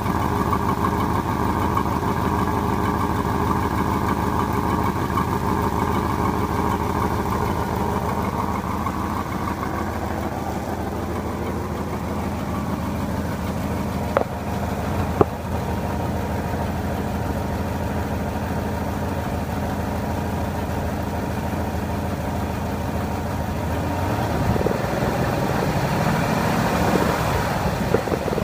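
1972 Ford F-100's 360 V8 engine idling steadily, with two sharp clicks about halfway through and a brief rise in engine speed near the end. This is the noise the owner is trying to identify.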